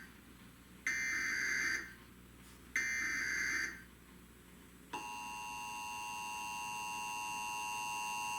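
Emergency Alert System SAME header: the end of one digital data burst, then two more short bursts about two seconds apart. About five seconds in, the EAS two-tone attention signal starts, a steady tone that slowly grows louder.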